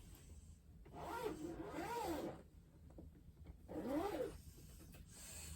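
Two wordless vocal sounds, each gliding up and down in pitch: a longer one with two rises about a second in, and a shorter one about four seconds in.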